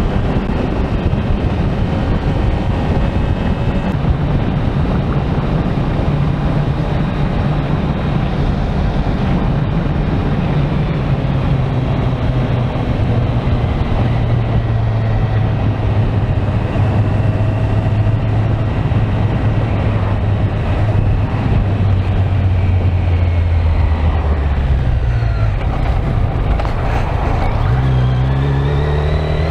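Kawasaki Z900's inline-four engine running under way at a steady cruising speed, with wind and road rush. Near the end the engine note drops and then climbs as the bike goes through a bend.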